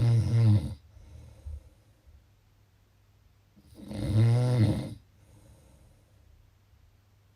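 A sleeping person snoring: two rasping snores about four seconds apart, one right at the start and one midway, each followed by a softer breath.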